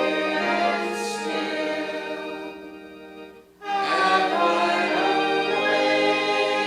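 Congregation singing a hymn, with a short break between lines about three and a half seconds in.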